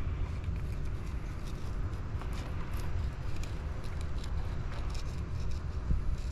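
Fillet knife cutting along a pompano's back, with faint scratchy ticks as the blade works through the skin, over a steady low rumble.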